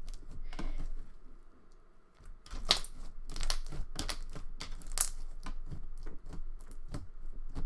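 Thick, overactivated slime being kneaded, squeezed and stretched by hand, giving an irregular run of clicks and pops over a soft squelch. It is quiet for the first two seconds or so before the popping starts.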